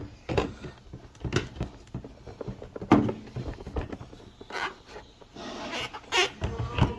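Irregular clicks and knocks with a short rubbing, rasping sound about five and a half seconds in.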